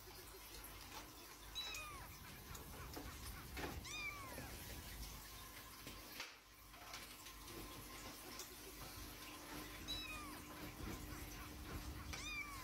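Domestic cat meowing in short calls that fall in pitch, about four times, over a faint steady hum.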